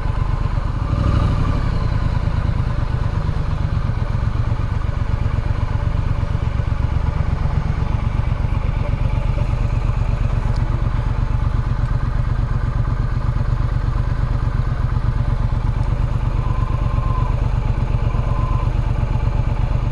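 Triumph Street Scrambler motorcycle's parallel-twin engine running steadily at low speed, its exhaust giving a fast even pulse.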